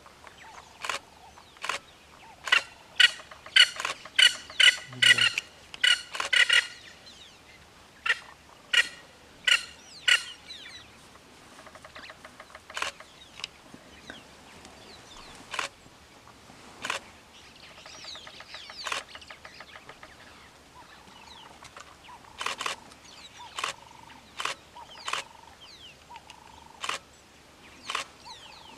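Birds calling: short, harsh calls come in a quick loud run for several seconds near the start, then singly every second or two, over faint background calls.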